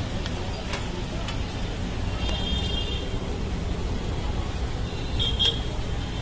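Steady low street-traffic rumble with two short high-pitched horn toots, one about two seconds in and a shorter one near the end.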